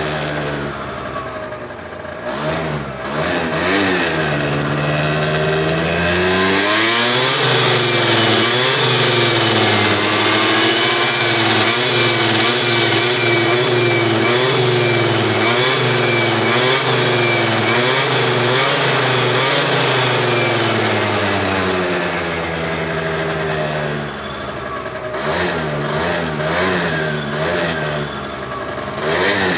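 Derbi Atlantis 50 scooter's 50cc two-stroke engine, hot and on its standard exhaust. It gives a few quick blips, then revs up over a few seconds and is held at high revs, wavering, for about fourteen seconds. It then drops back toward idle, with more short throttle blips near the end.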